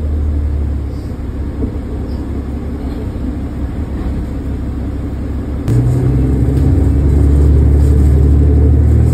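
Cabin sound of a 2005 New Flyer D40LF diesel transit bus: a steady low engine and road rumble, which suddenly grows louder about six seconds in as the engine comes up under throttle and stays there.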